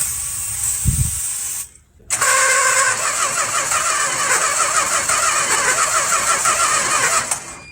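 1969 Chrysler Newport's 383 V8 being cranked over by its starter in two tries: a short one, then one of about five seconds with an even rhythm. The engine does not catch.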